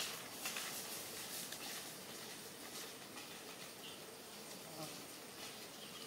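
Faint forest ambience: a steady hiss with insects buzzing, and a couple of faint short chirps about four to five seconds in.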